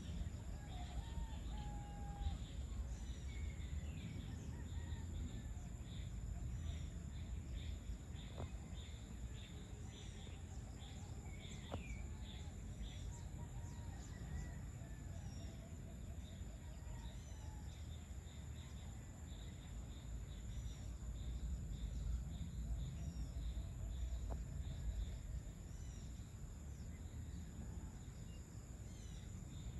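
Outdoor ambience of many birds chirping and calling, with roosters among them, over a steady low rumble.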